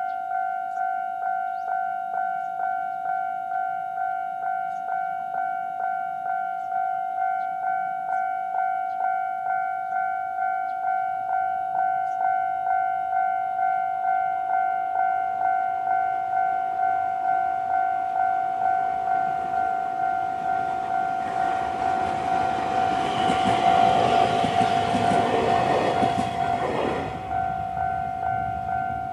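Japanese railway level-crossing electronic warning bell ringing steadily at about two strikes a second. An Abukuma Express AB900-series train passes over the crossing about two-thirds of the way in, its wheel and running noise building and then cutting off shortly before the end while the bell keeps ringing.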